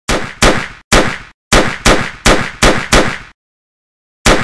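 Pistol gunshot sound effects: eight loud shots about 0.4 s apart, each with a short echoing tail, then a pause and a single shot near the end.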